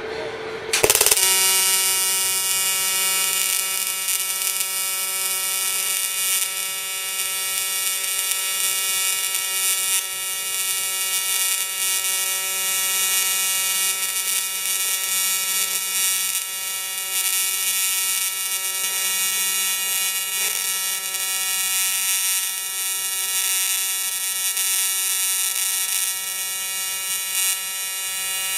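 TIG welding arc, struck about a second in and then buzzing steadily.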